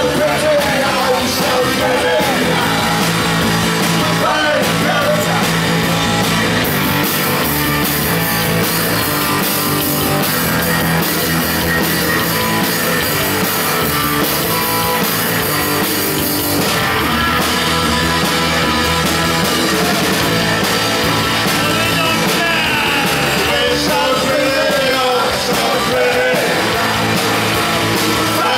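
Live rock band playing loud: electric guitar, bass guitar and drums, with a male singer's vocals on top. A bright hiss fills the top of the sound for about ten seconds in the middle.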